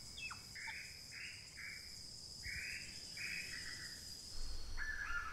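Quiet outdoor ambience: a steady high insect drone, with a run of about six short raspy calls in the first few seconds. A honk starts near the end.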